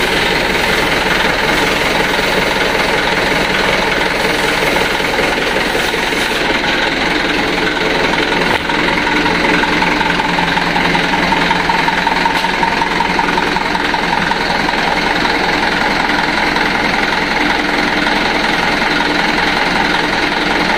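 Mitsubishi Fuso Canter truck's diesel engine idling steadily.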